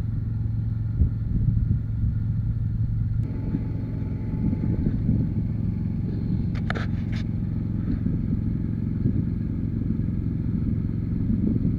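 Backhoe loader's diesel engine idling steadily, with a few sharp clicks a little past halfway.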